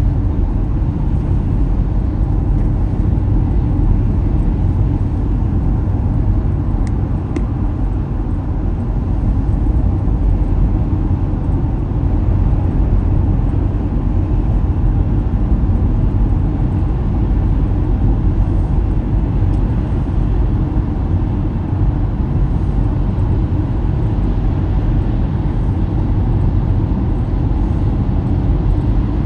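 Steady low rumble of road and engine noise inside a car cruising at highway speed on a wet freeway.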